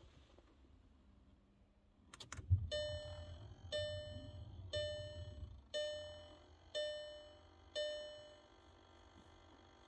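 Audi Q3's warning chime sounding six times, about a second apart, each gong-like tone fading out, after a few sharp clicks. A low rumble runs under the first few chimes.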